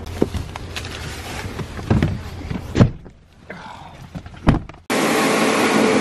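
A few knocks and thumps over a low rumble. About five seconds in it switches suddenly to a grain dryer running, a loud steady drone with a held tone.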